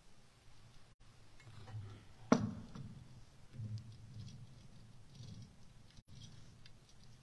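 Microphone on a boom stand being handled and adjusted: low handling rumbles, with one sharp knock about two seconds in. The signal cuts out for an instant twice.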